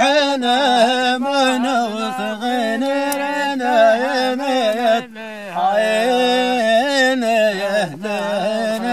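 A man's voice singing a long, wavering, ornamented chant-like melody, with a short break about five seconds in.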